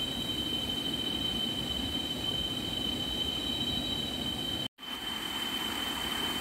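Steady rush of flowing river water with a constant high-pitched insect drone over it. The sound cuts out for a split second about three-quarters of the way through, then carries on with a little more hiss.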